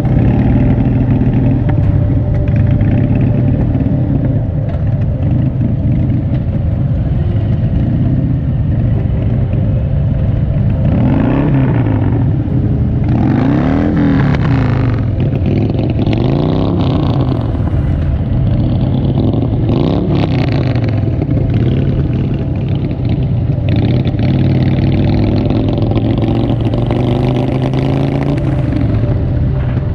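Motorcycle engines running steadily at road speed in a group ride, with a low rumble of wind and road noise. Through the middle the engine note rises and falls several times as the throttle opens and closes.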